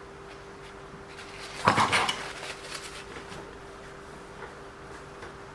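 A short clatter of small metal parts and tools being handled, about a second and a half in, then a few lighter clicks.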